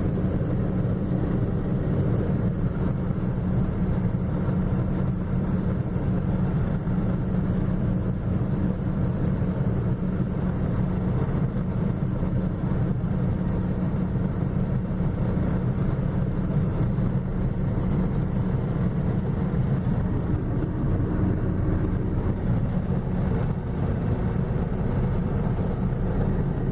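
John Deere 6620 combine running steadily under harvesting load, a constant engine drone with no change in speed.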